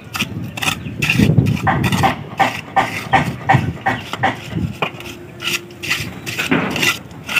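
Hand trowel scraping and working a wet sand-and-cement mix in a wooden step form: an irregular run of short scrapes, two or three a second.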